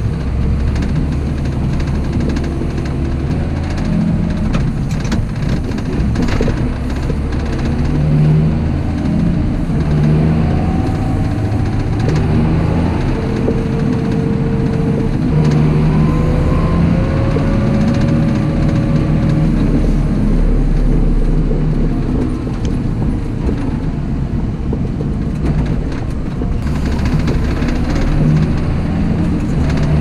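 John Deere tractor's diesel engine running under way, with the steady drone of the cab around it; its pitch rises and falls a few times as the engine speed changes.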